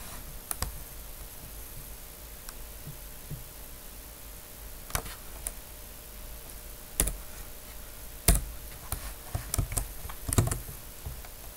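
Computer keyboard keystrokes and clicks, scattered single taps a second or two apart with a quick run of several near the end, over a faint steady room hum.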